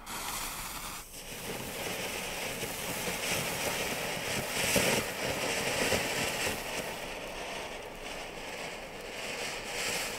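Category F1 ground fountain firework, its fuse lit with a gas torch lighter, spraying sparks with a steady rushing hiss from about a second in.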